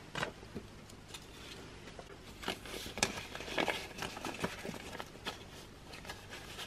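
Paper banknotes and a paper cash envelope rustling in handling as bills are picked up and slid into the envelope, in short irregular bursts that are busiest and loudest in the middle.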